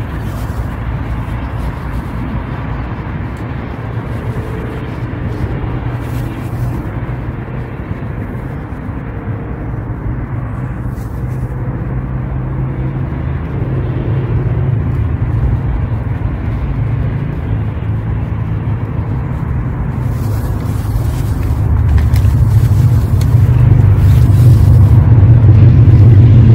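Wind rumbling on the microphone: a steady low rumble that grows louder over the last few seconds.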